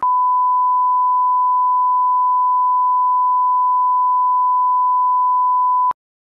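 Colour-bars test-tone beep: one steady, pure high tone held for about six seconds, which cuts off suddenly with a click near the end.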